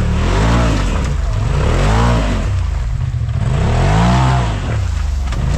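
Side-by-side UTV engine revved in repeated throttle bursts while rock crawling, its pitch rising and falling about three times.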